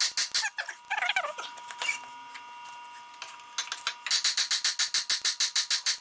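Rapid hammer blows on a brass drift driving an Ingersoll Rand 2545 compressor's crankshaft out of its cast crankcase, about five strikes a second, with a steady metallic ring under them. The blows pause in the middle and start again near the end.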